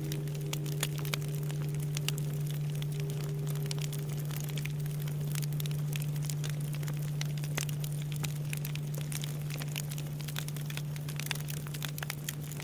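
Wood bonfire crackling with frequent snaps and pops, over the steady low hum of a Japanese temple bell (bonshō) that lingers after a strike, its higher overtones fading out in the first few seconds.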